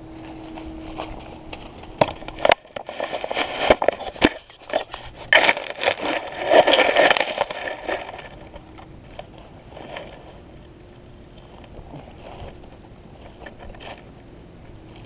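Scraping and crackling of dry leaves and grass being disturbed close to the microphone, with sharp clicks among it, loudest from about two to eight seconds in.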